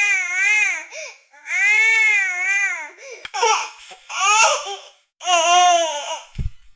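A baby sobbing: about five high, wavering cries in a row, each rising and falling in pitch, with short gaps between them.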